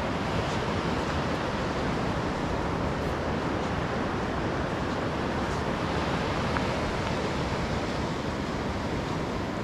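Steady wash of surf breaking along a sandy beach, an even rushing noise, with wind on the microphone.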